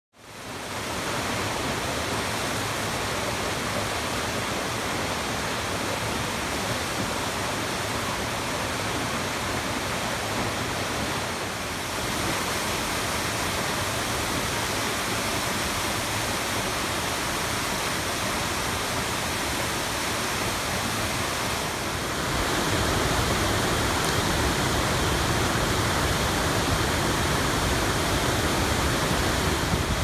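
Waterfall rushing: a steady, even noise of falling water, fading in at the start and growing a little louder about two-thirds of the way in.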